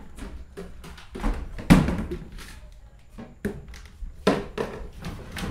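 Irregular knocks and thumps as a plastic bucket and metal pans are handled and set down on wooden floorboards, mixed with footsteps on the boards. The loudest thump comes a little under two seconds in.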